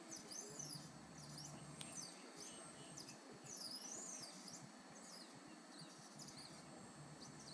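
Electric servo actuators of a Model 710-3-500 three-axis motion base whining faintly as the platform moves, the whine sliding up and down in pitch over and over as the actuators speed up and slow down. A single sharp click about two seconds in.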